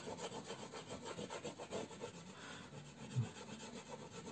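An Eureka oil pastel stick scraping back and forth across paper in quick, repeated, faint hatching strokes as the background is filled in. A brief low hum comes about three seconds in.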